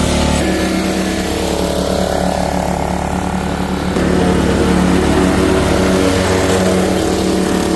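Snapper riding lawnmower's engine running steadily, its tone shifting slightly about half a second in and again around four seconds.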